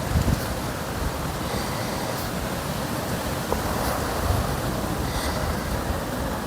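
Wind on the microphone: a steady rushing hiss with uneven low rumbling gusts, the strongest about four seconds in.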